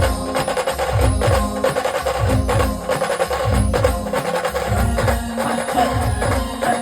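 Live Indian street band playing an instrumental passage: heavy drums beating in a driving rhythm under sustained melody notes.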